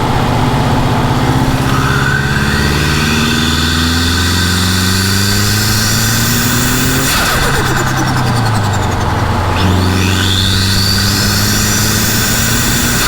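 Subaru Impreza WRX STi with a custom VF43 turbo accelerating hard, engine pitch and a high turbo whistle rising together. About seven seconds in the throttle lifts and the turbo flutters with compressor surge, then the car pulls again with the whistle climbing, lifting once more near the end.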